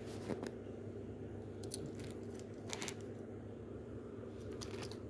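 Scattered small clicks and crackles, as of objects being handled, over a steady low electrical hum.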